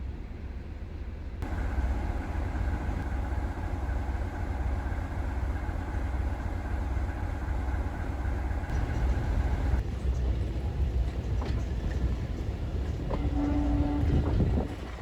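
Diesel train running with a steady low engine rumble. From about ten seconds in there are scattered clicks, and near the end a short steady tone.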